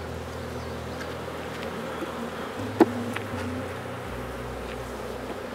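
Honey bees buzzing steadily over an open hive, a continuous low hum. One sharp knock about three seconds in stands out above the buzzing.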